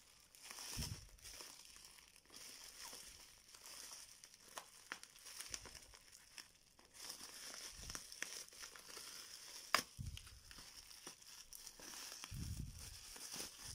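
Plastic bubble wrap crinkling and rustling as it is pulled open by hand, with scattered small crackles and one sharper snap near the ten-second mark. There are a few low bumps from handling near the end.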